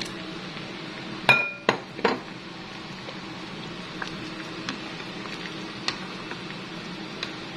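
A cooking utensil knocks against a metal pan three times a little over a second in, the first knock ringing with a metallic note, then a few faint taps as cubed potato and carrot are stirred into a chicken stew. A steady low hum runs underneath.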